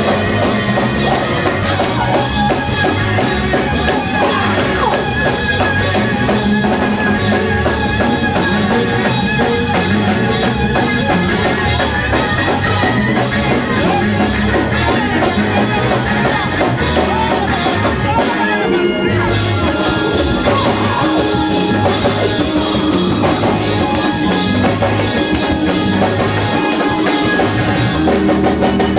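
Live church band music: a drum kit keeping a steady beat under bass and keyboard, with some voices from the congregation.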